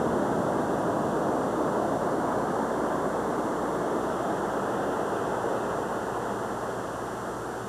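Steady rushing noise that slowly fades.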